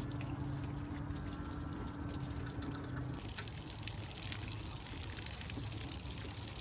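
Antifreeze draining out of the 1966 Ford F100's cooling system in a steady pour. A steady low hum stops about three seconds in.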